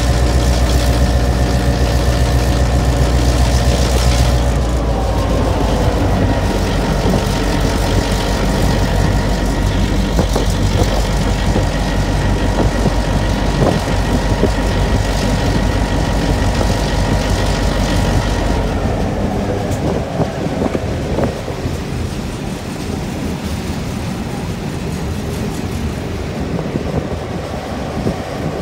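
EMD diesel-electric locomotive engine running under load as the train gets moving. Its note drops about five seconds in, and the deep rumble falls away later on, leaving the wheels running on the rails.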